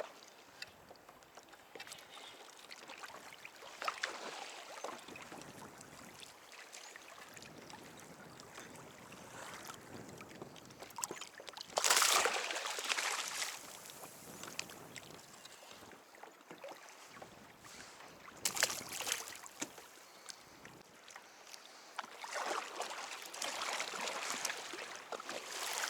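Water sloshing and splashing around a fishing kayak, with a few louder splashes about four, twelve and eighteen seconds in and again near the end.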